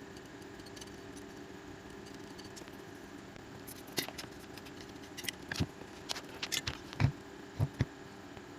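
A run of small sharp clicks and taps from hand tools handling a phone's charging port and board during repair work. They start about halfway through, and the loudest knock comes near 7 s. A steady low hum sits underneath.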